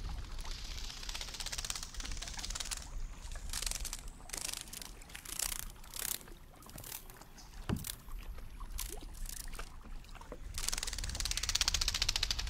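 Choppy water sloshing and splashing against a kayak hull, with a dense run of fast clicks near the end.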